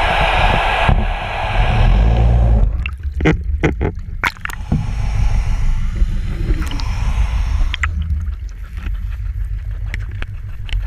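Scallop dredge towed underwater, heard from a camera housing mounted on it: a heavy low rumble of water rushing past with a hiss that drops away about three seconds in, followed by a scattering of sharp clicks and knocks.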